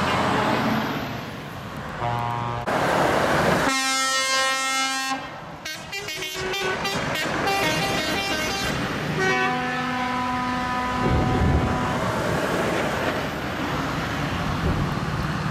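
Trucks passing and sounding their air horns: a series of horn blasts, the loudest about four seconds in and a long one held from about nine to twelve seconds, over the noise of the trucks driving by.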